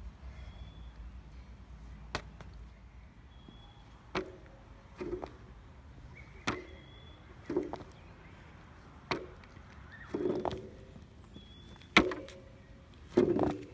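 Spring-mounted balance board rocking under a person's weight: the deck knocks and its steel coil springs creak and ring, a sharp knock about every second or so.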